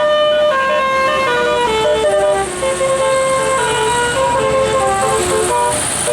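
Bus telolet horn playing a quick tune of stepped notes, several pitches sounding together and changing every fraction of a second without a break.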